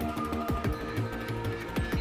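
Electronic background music with a steady beat and deep falling kick-drum hits.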